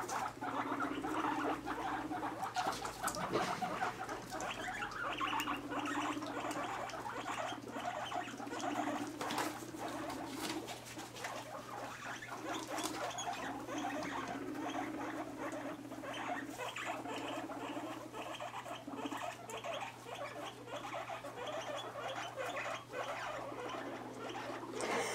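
Guinea pigs rumbling in repeated low purring bursts of about a second each, a courtship and dominance display among boars and sows newly reunited in one herd, with scurrying and rustling in wood-shaving bedding.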